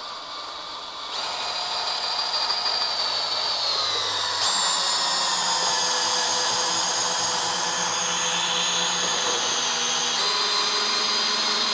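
Cordless drill running continuously on a long extension, cranking the sled lift's bulldog jack to raise a snowmobile. The motor whine gets louder about a second in, and its pitch shifts around four and a half seconds in and again near ten seconds.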